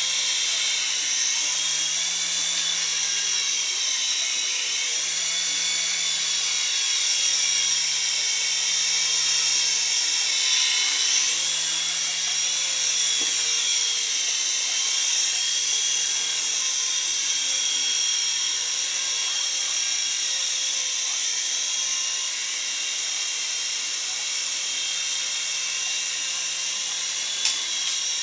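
Toy remote-control helicopter in flight, its small electric motors and rotors giving a steady high-pitched whine whose pitch wavers slightly as it is steered. A single short click near the end.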